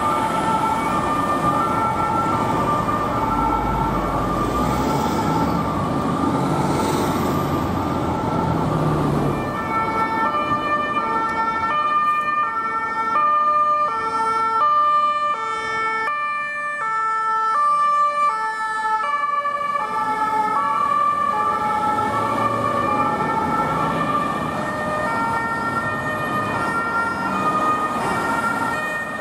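Ambulance two-tone sirens alternating between a high and a low note, heard over city traffic as emergency ambulances drive past. About ten seconds in, the sound cuts to another ambulance whose two-tone siren sits at a different pitch.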